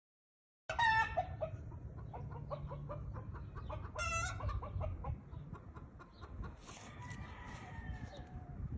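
Chickens calling: two short squawks about a second in and again about four seconds in, then a long falling crow from a rooster near the end, over a low rumble.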